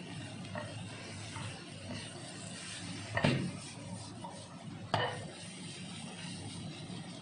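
Wooden spatula stirring and scraping chicken and vegetables in a granite-coated frying pan, over a steady sizzle. Two sharp knocks against the pan, the louder one about three seconds in and the other about five seconds in.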